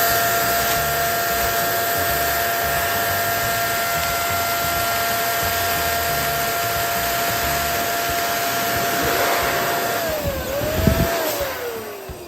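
Electric balloon pump running steadily with a whining hum as it inflates a balloon. About ten seconds in its pitch dips and comes back, then it winds down and fades, with a low thump just before.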